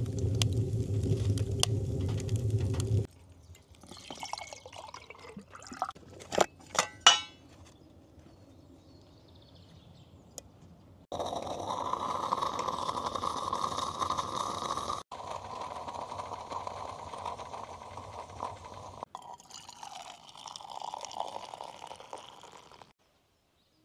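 A run of camp-cooking sounds cut together. First a wood fire burning in a steel stove, with a low rumble and sharp crackles. Then a few metal clinks, a steady hiss from a can of food heating on the stove, and near the end a hot drink poured from a steel pot into a metal mug.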